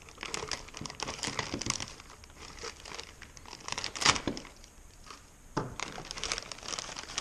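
Plastic packaging crinkling and rustling as it is handled and unwrapped, with a sharper click about four seconds in.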